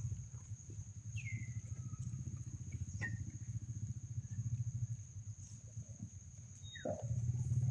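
Outdoor ambience: a steady high-pitched insect drone over a low, pulsing rumble. A short falling chirp comes about a second in, and a louder falling call comes near the end.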